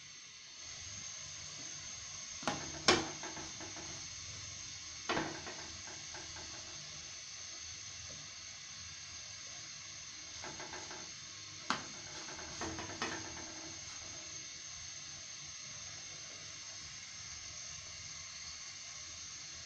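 Pita bread warming on a hot flat iron tawa over a gas stove: a steady faint hiss, broken by a few sharp taps and clatters as the bread is laid on and handled on the griddle, the loudest about three seconds in and about twelve seconds in.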